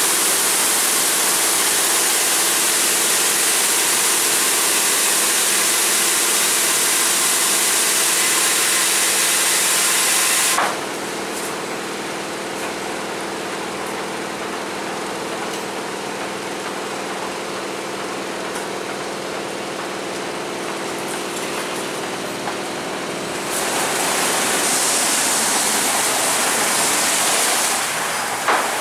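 WashTec Combiwash rollover car wash spraying water onto a car, a loud even hiss that cuts off abruptly about ten seconds in. The wash machinery's steady hum is left behind. A lighter spray hiss starts again about two-thirds of the way through, and there is a single click near the end.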